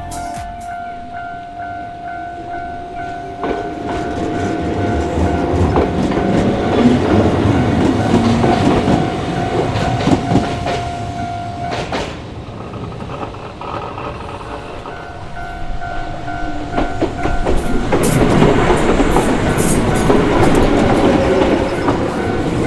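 Shizuoka Railway electric trains passing over a level crossing: wheels rolling and clacking over the rails with electric motor whine, in two passes, the second with a falling whine near the end. A steady crossing warning tone sounds through the first half and stops about halfway.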